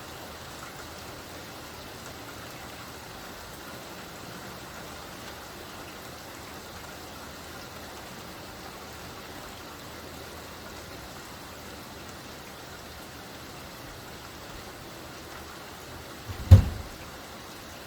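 Steady light rain falling, an even hiss. About sixteen seconds in comes one brief, deep thump, the loudest sound here, with a smaller knock or two around it.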